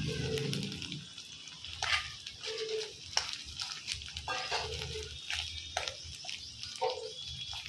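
Steel spoon scraping and knocking against an aluminium kadai as fish roe is stirred and broken up in hot oil with onions and curry leaves, with a faint sizzle underneath. The clicks come irregularly, several times a second.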